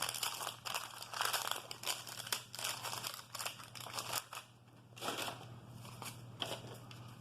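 Wax paper wrapper of a 1988 Topps baseball card pack being torn open and crinkled, a run of crackling rustles with a short lull a little past the middle, over a low steady hum.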